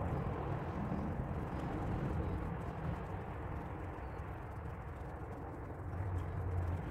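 Steady low background rumble.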